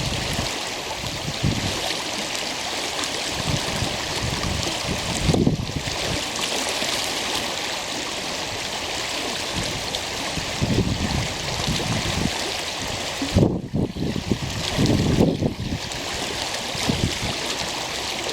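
Water of a stream rushing and splashing steadily, with gusts of wind buffeting the microphone as low rumbles several times, most often in the last few seconds.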